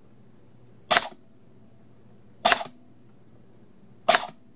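Airsoft AEG gearbox, opened on the bench and run on a LiPo battery through a discrete-logic MOSFET fire control circuit, firing three single semi-auto cycles. Each trigger pull gives one short burst of motor and gear cycling, about one and a half seconds apart.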